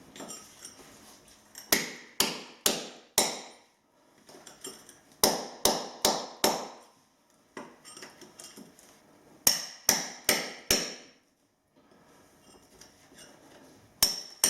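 Sharp hammering strikes in groups of four, about half a second apart, with a new group every three to four seconds and fainter taps in between.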